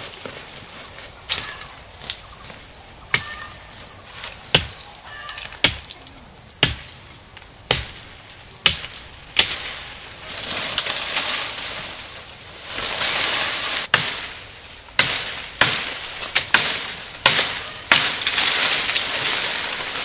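Machete chopping at a sapling stem, sharp strikes about once a second, then leaves and branches rustling heavily through the second half, with more strikes among them.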